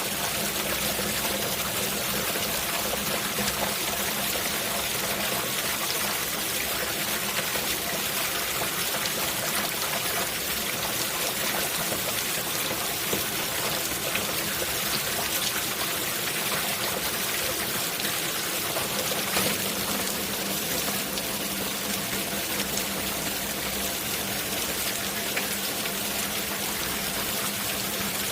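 Steady rain falling, with water trickling and pouring and many small drops ticking, evenly.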